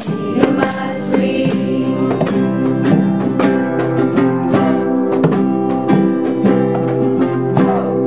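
Acoustic guitars strummed in a steady rhythm with a group of young voices singing along: a casual sing-along song.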